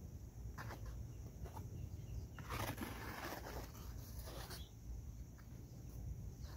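Trowel spreading and smoothing wet foamed aircrete in block molds: several soft scraping strokes, the longest about two and a half seconds in, over a low rumble.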